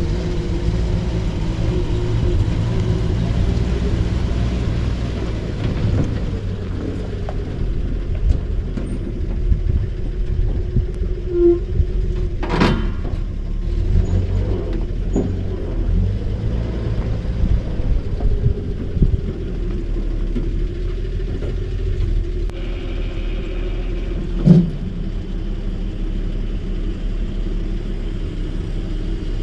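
Old Chevrolet Maple Leaf truck engine running steadily with a low rumble, with a few sharp knocks and clanks over it, one about halfway and the loudest near the end.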